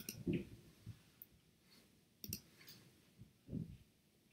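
Faint, scattered clicks of a computer mouse and keyboard, a handful of separate clicks at irregular intervals.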